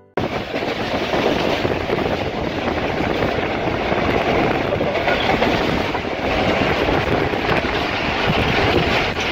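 Passenger train carriage running at speed, heard at an open window: steady, loud rumble and rattle of the wheels on the track.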